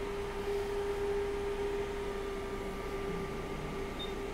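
A steady, even hum: one mid-pitched tone with a fainter higher tone above it, from electrical bench equipment, over low background noise. A tiny high blip comes near the end.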